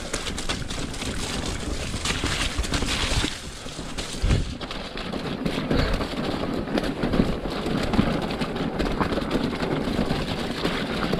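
Mountain bike descending a wet, muddy trail: tyres running and splashing through mud and standing water, the bike rattling and knocking over stones, with wind buffeting the microphone. A heavier thump about four seconds in.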